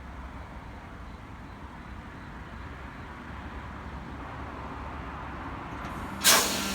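Sydney Trains Tangara electric train rumbling along the platform, its noise slowly building, then a sudden loud burst of air hiss from its brakes near the end.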